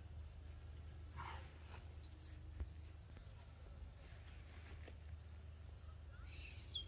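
Faint forest ambience: a steady high insect trill, with a few short bird chirps scattered through it, a small cluster near the end, over a low steady rumble.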